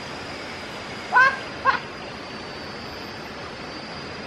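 Steady rush of a forest stream with a thin, steady high tone over it. Two short, rising animal-like calls come about a second in, half a second apart.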